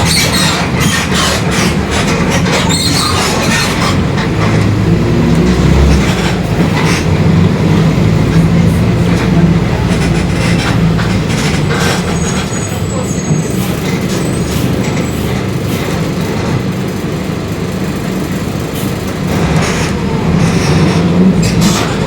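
Mercedes-Benz OF-1721 city bus under way, heard from inside: a steady low drone from the engine and drivetrain, its pitch shifting as the bus speeds up and slows, with frequent rattles and knocks from the body. Through it runs the growl of the differential, a sign of a worn differential.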